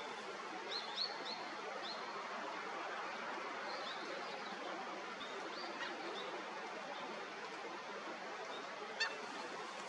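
Steady rush of flowing river water, with short high rising bird calls scattered through it, several in a quick run about a second in, and one brief sharper call near the end.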